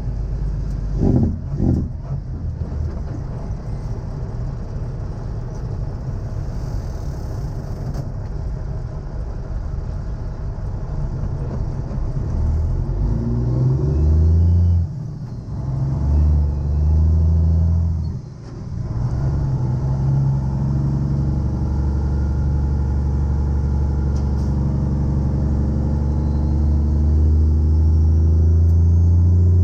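Heavy tow truck's diesel engine under way: a low rumble that climbs in pitch as it accelerates through the gears, drops out briefly twice about halfway through at gear changes, then runs steady and louder.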